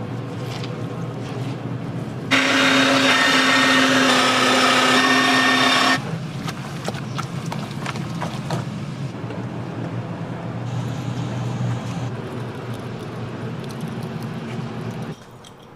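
An electric kitchen appliance's motor runs loud and steady at one pitch for about four seconds, starting and stopping abruptly, over a background of kitchen clatter and hum.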